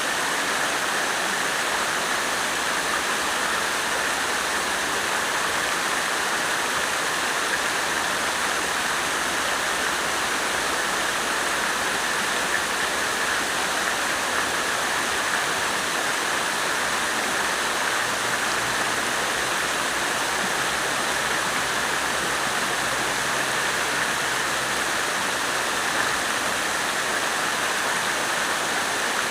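Water fountain splashing: a steady, unbroken rush of falling water.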